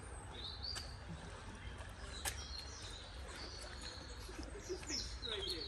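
Faint bird chirps, a few short high calls near the start and again near the end, over a steady low outdoor rumble.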